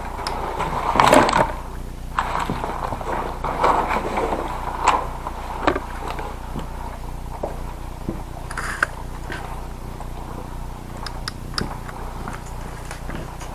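Scuffing and rustling of a player moving with an airsoft shotgun, loudest about a second in, followed by scattered short clicks and knocks, over a steady low hum.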